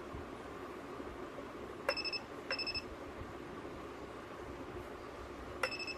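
Battery spot welder firing twice, about four seconds apart: each weld is a sharp snap with a short high beep from the welder, followed by a second short beep about half a second later.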